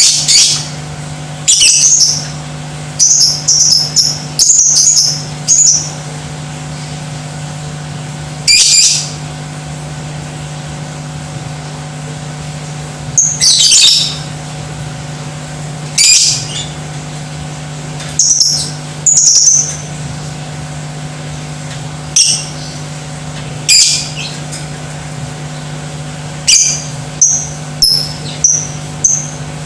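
Lovebird giving short, shrill chirps and screechy calls in bursts every second or two, some in quick runs of several notes, over a steady low hum.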